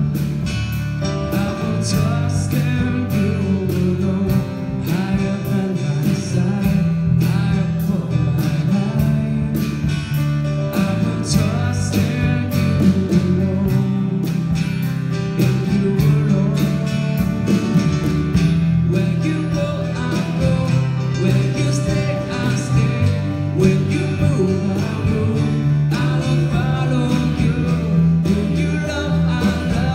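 A live worship band playing a song: strummed acoustic guitar over a bass guitar line, with a woman singing into a microphone.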